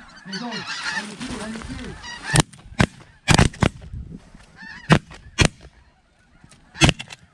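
Geese honking overhead, then a volley of about seven shotgun blasts from about two seconds in, coming in quick pairs and singles.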